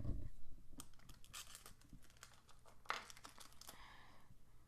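Trading-card pack wrapper crinkling and tearing as it is handled and ripped open, a run of small rustles and clicks with a sharper rip about three seconds in.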